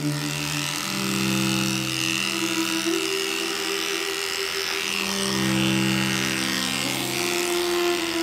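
Electric dog grooming clipper running steadily as it shaves through a thick, matted coat, with slow cello music underneath.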